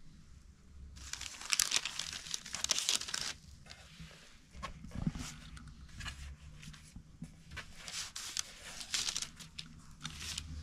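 Crinkling and rustling, like paper being handled, in two spells: one starting about a second in and another around seven and a half seconds in, with small scattered clicks between them.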